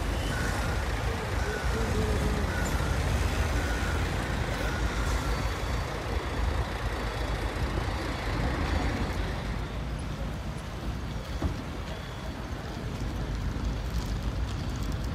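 Steady rumble of heavy road vehicles, trucks among them, running on a ferry quay, with a faint thin whine in the first few seconds.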